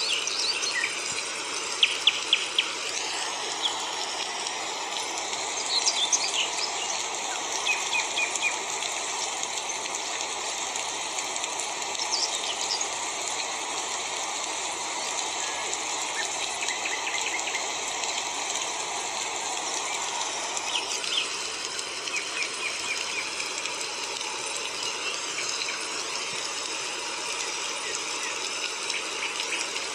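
Outdoor nature ambience: birds chirping and short insect-like trills over a steady rushing hiss. The hiss thickens a few seconds in and eases back about two-thirds of the way through.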